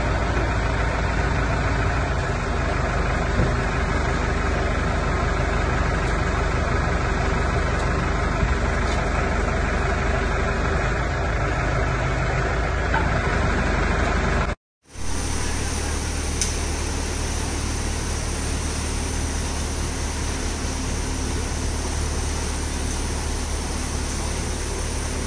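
A machine engine running steadily at low speed. About fifteen seconds in the sound cuts to a different steady engine drone, that of a concrete mixer truck pouring concrete, with a faint high whine over it.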